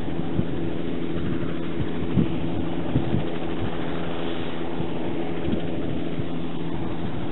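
Crop-spraying helicopter hovering low on its approach to land, its engine and rotor making a steady hum with several held tones. A few brief low thumps.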